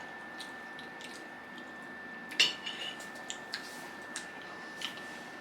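Tableware clinking during a meal: one sharp clink with a brief ring about two and a half seconds in, followed by a few lighter taps against plates. A faint steady high tone runs underneath.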